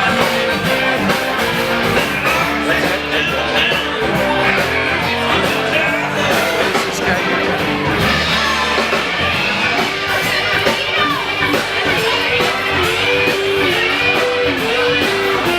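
Rock-and-roll music with guitar and singing, playing steadily throughout.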